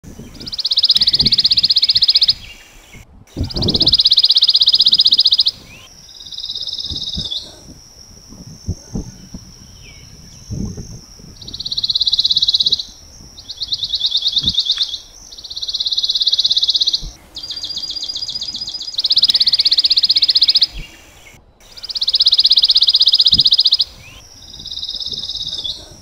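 Recorded pine warbler songs: a fast, even trill of rapid notes lasting about one and a half to two seconds, repeated about ten times with short gaps.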